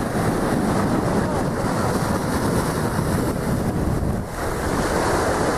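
Small sea waves breaking and washing up a sandy beach, with strong wind buffeting the microphone; the noise dips briefly about four seconds in.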